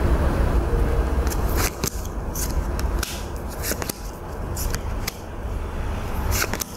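Playing-size divination cards handled on a table: a scatter of short clicks and snaps, about a dozen over several seconds, over a steady low rumble.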